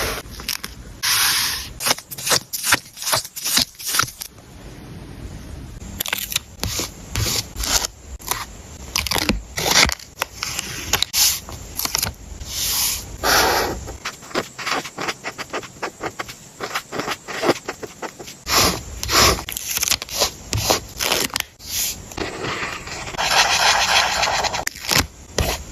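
Paper and sticker materials being handled on a journal page: a busy run of short crinkles, taps and scrapes, with a longer stretch of rustling a little before the end.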